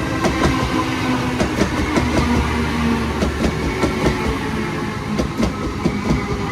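Sydney Trains H-set (OSCAR) electric multiple unit rolling along the platform, its wheels clicking rapidly over rail joints under a steady electric motor whine and low rumble.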